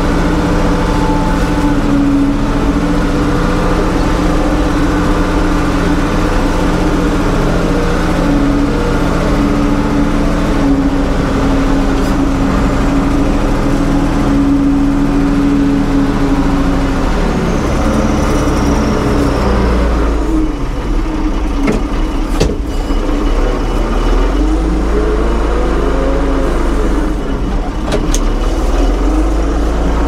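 1975 Ford 550 backhoe's diesel engine running steadily, then its speed rising and falling again and again over the second half.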